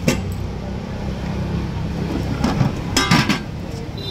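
Steel serving spoon clinking against a large steel cooking pot of rice, once just after the start and in a short run of clinks about three seconds in, over a steady hum of road traffic.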